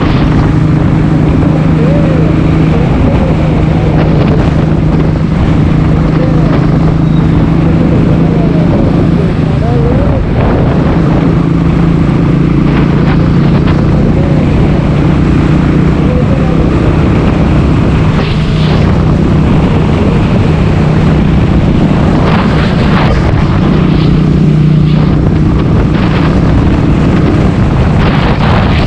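Motorcycle riding at a steady speed: the engine's steady low drone under loud wind rush on the microphone, with gusts and knocks in the second half.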